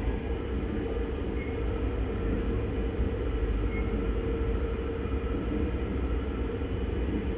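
Seoul Subway Line 9 train running between stations, heard inside its rear trailer (non-motor) car. A steady low rumble of wheels on rail carries a steady hum above it.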